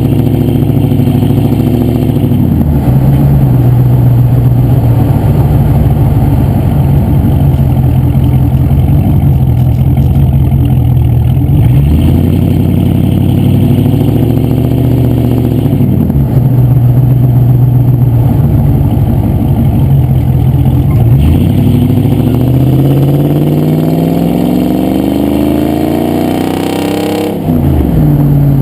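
Range Rover P38's 4.6-litre V8 revving: held at a steady speed, with a couple of short dips and swells, then a long climb in revs over several seconds near the end that drops away suddenly and starts to rise again.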